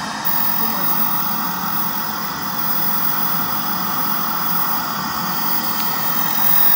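Steady hiss of analog television static, like a TV tuned to a dead channel showing snow.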